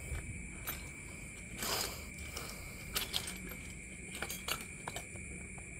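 Faint scattered clicks and a brief rustle of tools and parts being handled during scooter repair work, over a steady high-pitched drone of night insects.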